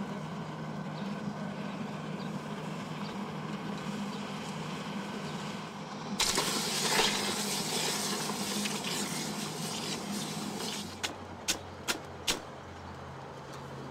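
Red-hot steel held in blacksmith's tongs is plunged into a bucket of water about six seconds in and sizzles loudly for about four seconds. Near the end come four sharp clinks of metal on metal from the tongs, over a steady low hum.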